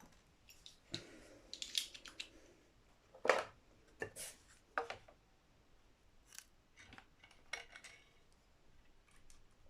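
Wire cutters snipping through guitar wiring: a string of short, sharp snips and clicks at irregular spacing, with small tool-handling sounds between.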